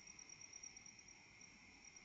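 Faint, steady chorus of night insects: a continuous high-pitched trill with a second, lower trill beneath it.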